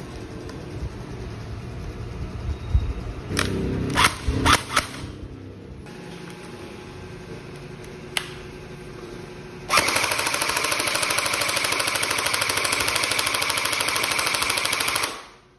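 AK47-style gel blaster firing on full auto for about five seconds, a rapid even rattle that cuts off near the end. Before it, a few clicks and knocks of the blaster being handled and readied.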